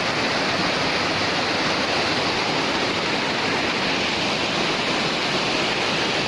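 Waterfall rushing, a steady, loud, even roar of falling water.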